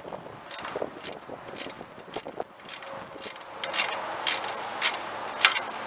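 Hand wrench working a bolt on a garden-tractor snowplow's steel mounting bracket: short metallic clicks about twice a second, louder in the second half.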